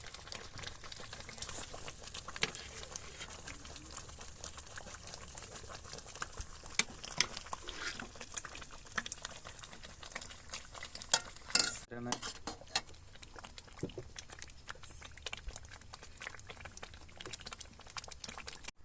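A metal spoon stirring and scraping saag (cooked greens) in a pot, with many short clicks and scrapes over a steady bubbling, sizzling hiss. The sound cuts out briefly about two-thirds of the way through.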